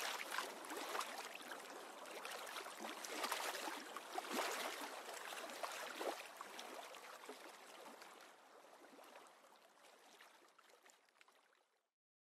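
Running water splashing and gurgling unevenly. It fades out from about eight seconds in and stops just before the end.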